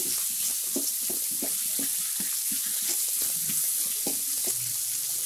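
Chopped tomatoes and onions sizzling in hot oil in a metal kadai, stirred with a wooden spatula that scrapes and taps the pan about two or three times a second. The mix is being sautéed until the raw tomato smell goes.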